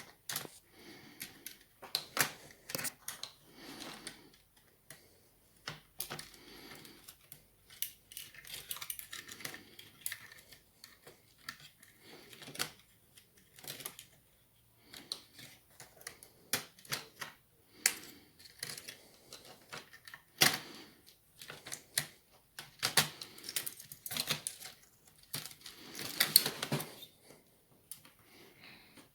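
Hands and small tools working on a laptop's internal metal frame: irregular sharp clicks and taps with short scrapes of metal and plastic.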